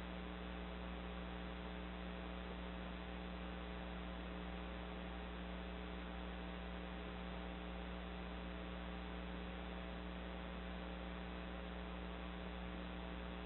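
Steady electrical mains hum over a constant hiss.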